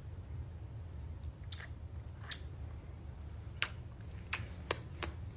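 Faint lip-smacking kisses on a cheek: a handful of short, sharp smacks, more of them in the second half, over a low steady hum.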